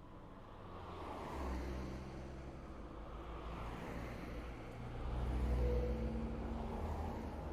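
Road traffic noise: a low vehicle rumble with tyre and wind noise, swelling about five seconds in.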